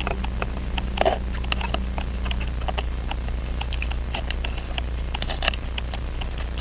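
Light, irregular clicks and taps of small tools and fingers handling a pocket watch movement, over a steady low hum.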